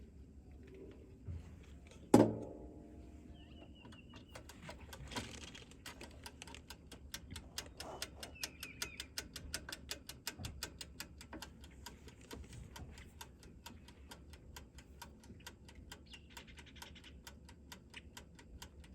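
The mechanical dial timer of a Dash mini toaster oven ticking steadily, about four ticks a second, as it counts down while the oven toasts. A single sharp metallic clank with a brief ring comes about two seconds in.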